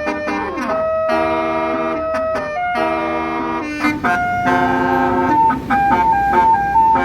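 Tour bus's roof-mounted Basuri telolet horn playing a tune of held, brassy multi-tone notes, switching to a quick two-note alternation near the end.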